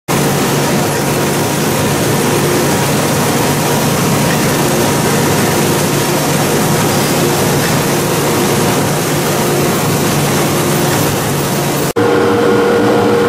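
Steady machinery noise of a plastic-bottle production line: a conveyor running gallon jugs through an in-line leak tester, an even hiss over a low hum. About twelve seconds in it breaks off abruptly and gives way to a different steady machine hum with a clear mid-pitched tone.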